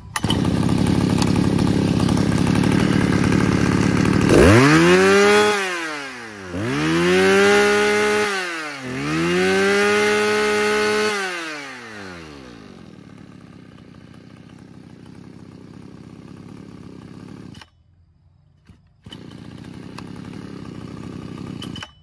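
Mitsubishi TL261 26cc two-stroke brush-cutter engine running freshly started, after a pull that caught easily. About four seconds in it is revved three times, each time rising to a high steady whine and dropping back. It then settles to a much quieter idle.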